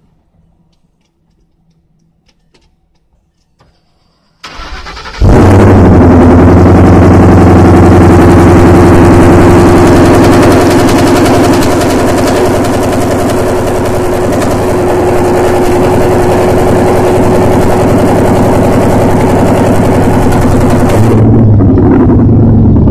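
2012 Mustang GT California Special's 5.0-litre V8, with ported heads, big cams, long-tube headers and dual 3-inch exhaust, is cranked on the starter about four and a half seconds in and catches at once. It then idles very loud right at the exhaust, a little quieter from about ten seconds in, and its pitch shifts briefly near the end.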